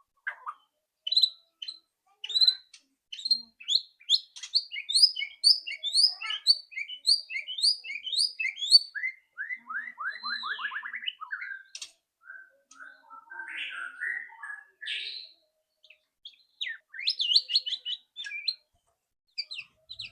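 White-rumped shama (murai batu) singing: varied whistled phrases with fast runs of repeated notes, and a run of lower notes about ten seconds in.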